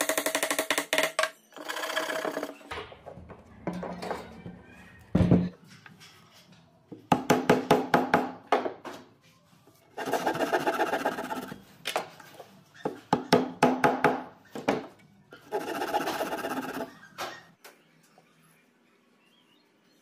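Hand pull saw cutting protruding wooden dowels flush with a pine box, in several bursts of quick rasping strokes with pauses between. There is a single knock about five seconds in, and it goes quiet near the end.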